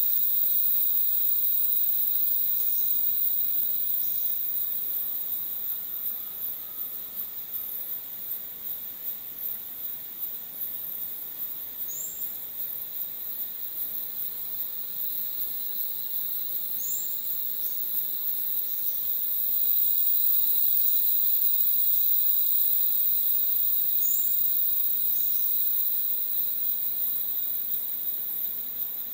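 Rainforest insect chorus: a dense, high-pitched shrill with a steady ringing tone beneath it, swelling louder about two-thirds of the way through. A few short upward chirps stand out now and then.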